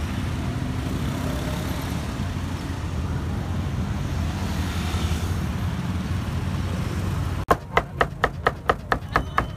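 Steady low street and traffic rumble, then near the end a cleaver chopping grilled pork belly on a round wooden chopping block: about ten quick, sharp chops, roughly five a second.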